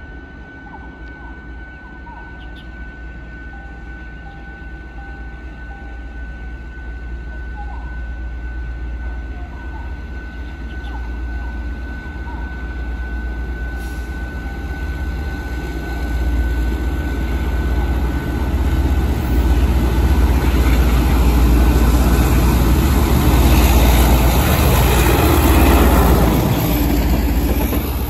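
A train approaching: a deep rumble that grows steadily louder, with wheel and rail noise swelling over the last several seconds.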